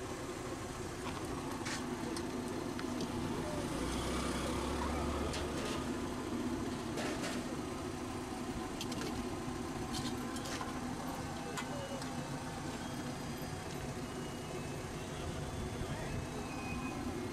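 Street ambience: a steady hum of traffic and indistinct voices, with scattered light clicks and clinks and a brief low rumble about four seconds in.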